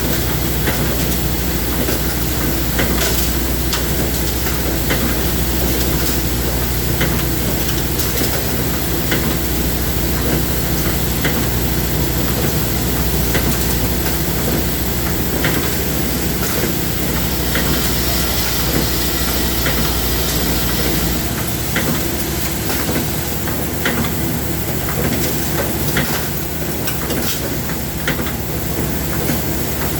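Workshop machine running with a steady hiss and scattered sharp clicks; its low hum cuts out about 21 seconds in.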